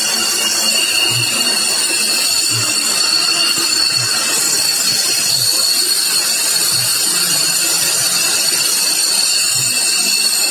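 F-16 fighter jet engines idling, giving a steady loud jet whine and hiss with several high, constant tones.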